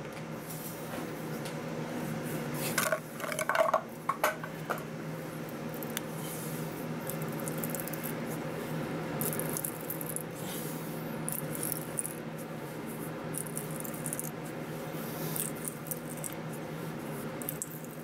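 A 5/8 tap is turned by hand with a T-handle tap wrench on a lathe, giving metallic clinks and ticks as the wrench and tap are handled and cut the thread. A cluster of louder clinks comes about three to four seconds in, over a steady low hum.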